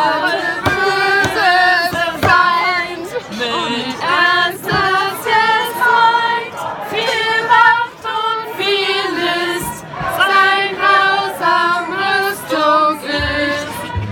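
A small group of people singing a song together in chorus, women's voices most prominent, held sung notes running on without a break.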